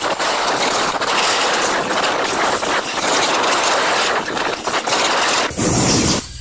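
Loud, steady mechanical noise with many small rapid knocks running through it. It turns heavier and deeper near the end, then cuts off suddenly.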